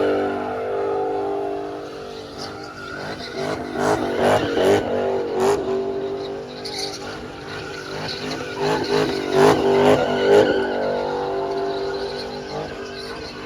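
A drifting car's engine held at high revs, surging louder in bursts twice, with the tyres skidding and squealing.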